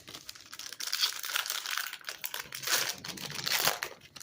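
A trading card pack's wrapper being torn open and crinkled in the hands: a dense run of crackling, loudest about a second in and again in the second half, dying away near the end.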